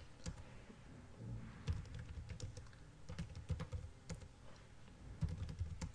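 Typing on a computer keyboard: irregular keystrokes with short pauses between bursts.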